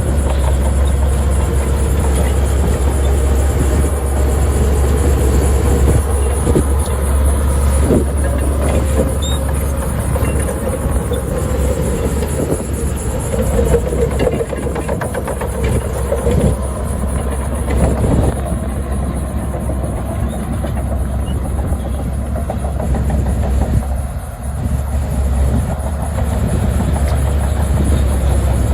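Heavy earthmoving machinery at work: diesel engines running steadily with repeated knocks and clanks, the engine note swelling about halfway through.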